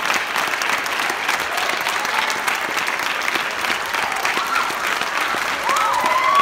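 Audience applauding steadily, with a couple of cheering shouts in the last couple of seconds.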